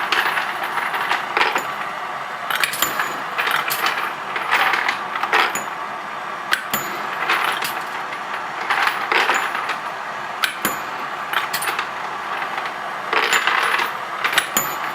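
Annealing machine running: a steady hiss from the torch flames, with brass rifle cases clinking and ringing every second or two as they are advanced and dropped into the catch bin.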